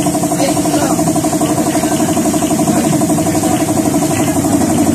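A small motor running steadily, with a fast, even pulse and an unchanging pitch.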